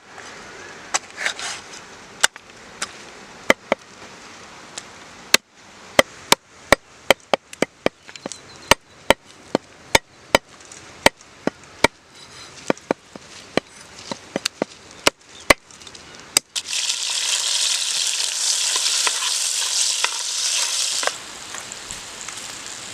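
Knife chopping on a board with sharp, irregular strokes. About two-thirds of the way in, ingredients hit hot oil and a loud sizzling starts suddenly, then settles to a quieter, steady frying hiss near the end.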